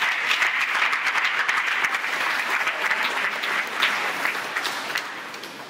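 Crowd of spectators applauding, the clapping thinning out and dying away near the end.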